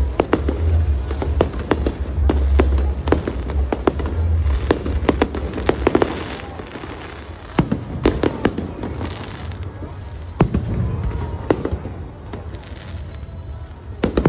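Aerial fireworks bursting overhead: a quick string of bangs and crackles with a low rumble, thinning to a few separate bangs in the second half.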